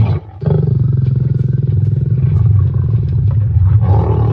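Lions growling in a fight: a continuous deep, rough growl, broken briefly just after the start, with louder snarls about half a second in and again near the end.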